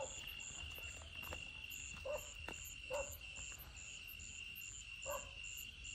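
Night insects: crickets keep up a steady high trill, while another insect chirps about two or three times a second. A few faint, short sounds lower down come through every second or so.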